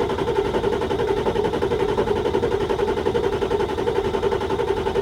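Starter motor cranking a 1995 Ford 7.3 Powerstroke diesel V8 in a steady, fast, even rhythm without it firing. No oil pressure has built up yet.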